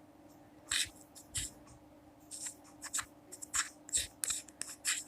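Handling noise from small plastic microphone parts: a series of short, sharp clicks and scrapes, a few at first and then coming faster about halfway through.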